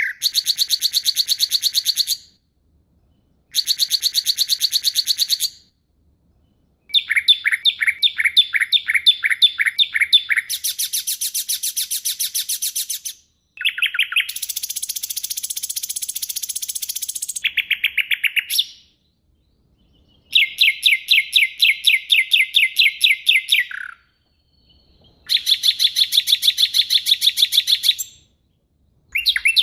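Songbird song in phrases of rapid, sharply repeated notes, each phrase lasting a few seconds with short pauses between, and one harsher, buzzy phrase about halfway through: the sharp 'tembakan' bursts of a birdsong training recording.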